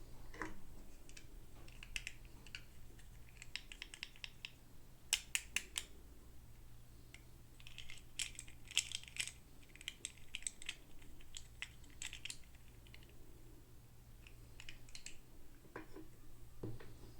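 Runs of light, quick clicks and taps of small hard plastic toy pieces and packaging being handled, in irregular clusters with short pauses between.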